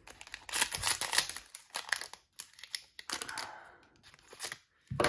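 Crinkly wrapper of a baseball card pack being cut open with scissors: irregular crackling and sharp snips.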